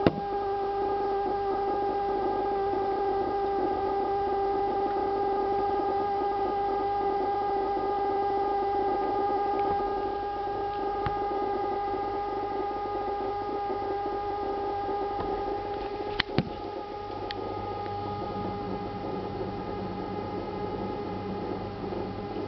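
Refrigerator giving off a steady, pitched humming drone with a few higher overtones. The owner has heard it going for about two minutes and doubts it is a fridge's normal noise. A couple of sharp clicks come about two-thirds of the way in.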